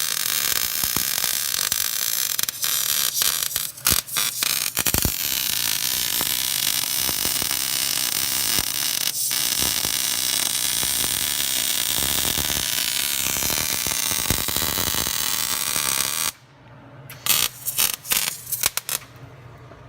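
Electric arc welding on the truck's steel frame mounting brackets: a loud, steady crackle of the arc. It cuts off about 16 seconds in, followed by a few brief crackling bursts.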